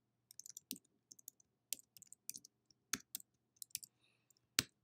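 Faint typing on a computer keyboard: a run of irregular key clicks, with a few sharper keystrokes in the second half and the loudest near the end.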